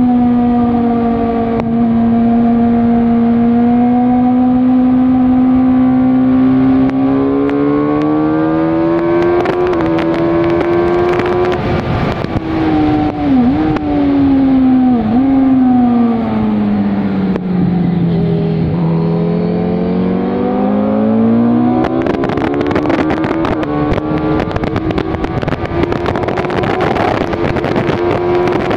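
Suzuki GSX-R sportbike's inline-four engine heard from the bike at speed on track, its pitch rising and falling as the rider works through the gears. There are two brief dips in pitch about halfway. The engine falls to its lowest pitch about two-thirds in, then climbs again. Rushing wind noise grows heavier near the end.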